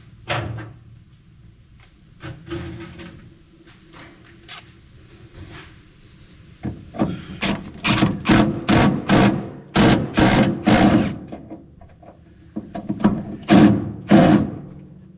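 Power drill run in short repeated bursts, driving a fastener home. The bursts are quieter early on, come thickest in the second half, and pause before a last few.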